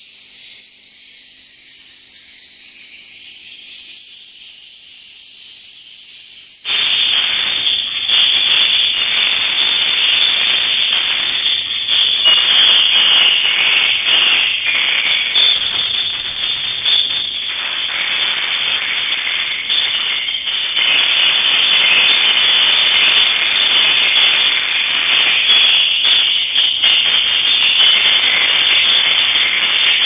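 High-pitched twittering swiftlet calls for the first few seconds. About seven seconds in, a sudden switch to a louder, dense hissing noise with the highs cut off, as picked up by a security camera's microphone, running steadily to the end.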